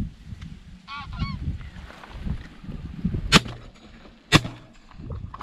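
Wild geese honking overhead, then two shotgun shots about a second apart.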